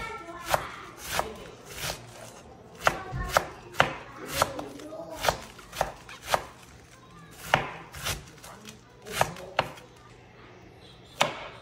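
Chef's knife shredding a head of cabbage on a bamboo cutting board, each slicing stroke ending in a knock of the blade on the wood. The strokes come unevenly, about one or two a second, with a pause of over a second before the last one.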